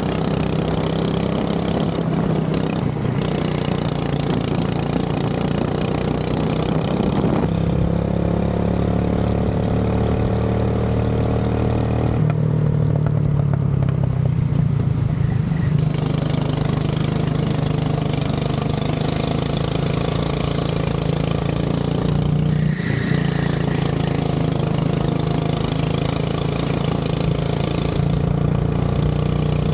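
Go-kart engine running steadily, its note shifting a few times with the throttle.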